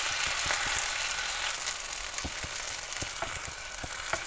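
Tandoori-marinated chicken pieces sizzling in oil in a nonstick frying pan, the hiss easing a little after about a second and a half. Scattered light clicks of metal tongs against the pan run through it as the pieces are lifted out.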